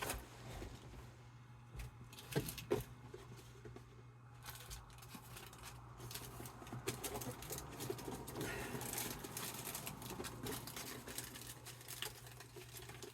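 Trading card packs and a cardboard blaster box being handled: faint rustling with a few light taps in the first few seconds, over a steady low hum.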